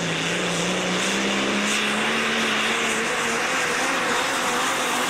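Modified diesel pulling tractor's engine at full throttle under heavy load while it drags the weight sled: a loud, steady drone over a dense roar, its pitch creeping slightly upward.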